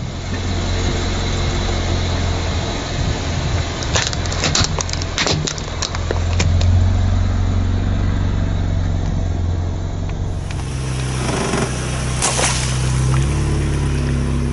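A car engine running slowly as the car rolls over objects on the ground; a cluster of sharp crackles and crunches about four to six seconds in as the items are crushed under the tyre, and after a cut, a single sharp burst with a splash-like rush near the end as a water balloon bursts under the wheel.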